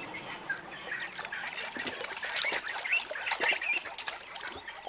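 Wild birds calling in bush country: many short calls with quick rises and falls in pitch, overlapping one another.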